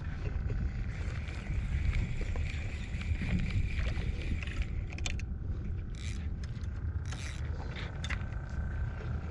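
A boat's engine running steadily with a low rumble, with scattered light clicks and rattles on top.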